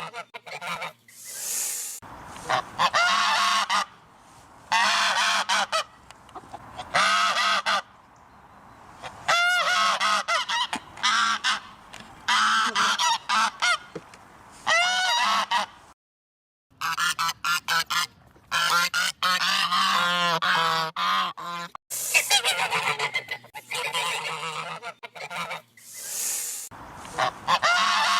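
Geese honking in a long run of repeated calls, each about a second long, with short pauses between. The sound cuts out completely for under a second about halfway through.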